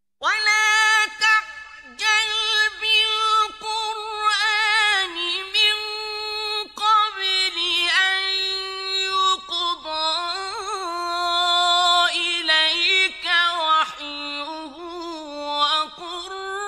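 A solo, high-pitched voice chanting unaccompanied, in long melodic phrases with wavering, ornamented notes, in the manner of Quran recitation.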